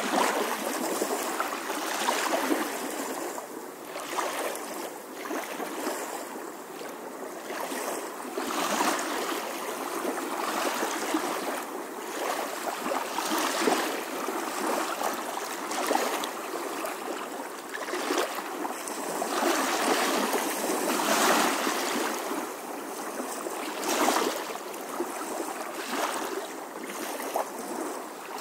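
Swimming-pool water splashing and churning around a camera that is partly submerged, in irregular surges with bursts of bubbling.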